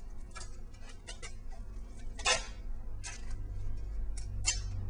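Handling noise of tape being worked over a foam sword pommel: scattered small clicks and crinkles, with a louder short rasp of tape about two seconds in and another near the end, over a low steady hum.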